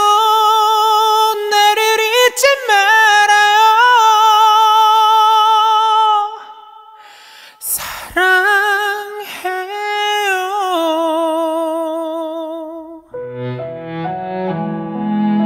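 A female voice sings a wordless vocal line in long held notes with wide vibrato, pausing for a breath about seven to eight seconds in. Near the end, strings and piano come in underneath.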